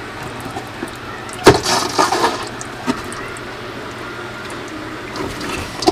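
Sharp plastic clicks and clattering as a hand works the valve and fittings on an under-sink reverse osmosis unit, the loudest a knock about a second and a half in, with two smaller clicks later. A steady rush of running water sits underneath.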